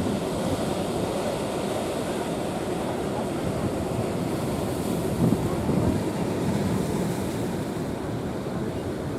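Big waves of a rough sea breaking and churning in a steady rush, with wind blowing across the microphone.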